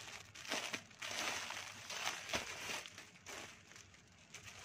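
Clear plastic packaging around folded cloth garments crinkling and rustling as hands press and open it, in irregular bursts, quieter near the end.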